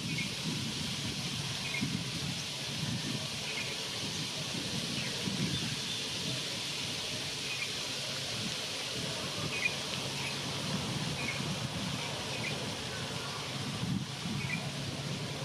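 Distant GEU-20 (GE U20C) diesel-electric locomotive running as it approaches, a low steady hum under open-air noise, with short bird chirps scattered throughout.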